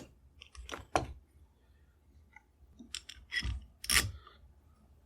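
Workshop handling sounds: a few short knocks and scrapes as supports for the router base are set in place on the bench, one group about a second in and another between three and four seconds in, the last the loudest. The router is not running.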